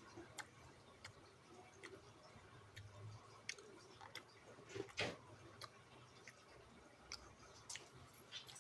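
Near silence broken by faint, scattered clicks and small mouth sounds of eating, the loudest about five seconds in.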